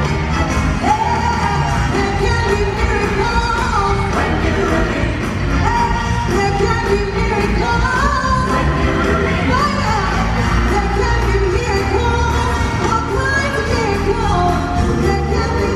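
Music with a singing voice carrying a melody over a full, continuous accompaniment with steady bass.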